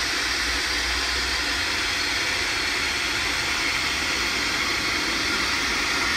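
Compressed air from a scuba cylinder hissing steadily into a dry suit through its inflator valve, pumping the suit up to pressure for a soapy-water leak test.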